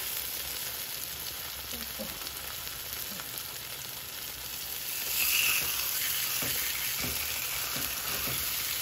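Coated fish fillets sizzling as they shallow-fry in oil in a pan. The sizzle is steady and swells louder about five seconds in.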